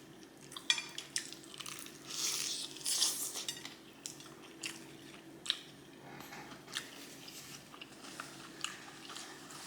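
Eating sounds: chewing and crunching of fried chicken, with scattered sharp clicks and light clatter. The crunching is densest about two to three and a half seconds in.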